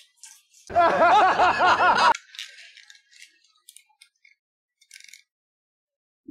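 A high, fast-warbling, laugh-like voice sound lasting about a second and a half, followed by a few faint clicks and taps.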